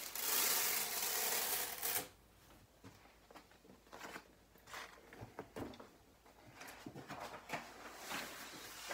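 Adhesive vinyl print being peeled off a painted wall: a steady peeling hiss for about two seconds that cuts off suddenly, then faint crinkling and handling of the flexible sheet.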